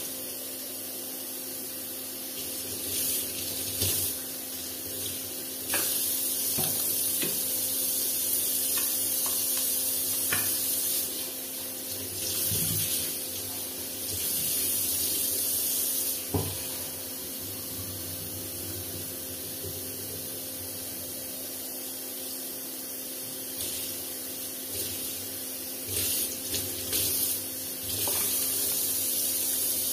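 Kitchen tap running into a sink while things are rinsed under the stream. The water's hiss swells in stretches as the stream strikes what is held under it, with a few light knocks against the sink.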